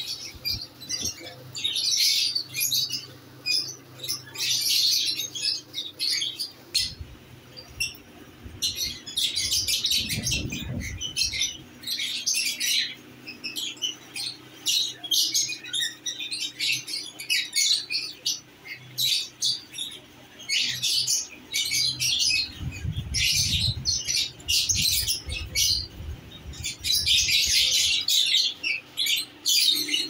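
Caged lovebirds chirping and squawking, shrill high calls coming in quick, overlapping bursts. A low rumbling noise joins in briefly about ten seconds in and again for several seconds later on.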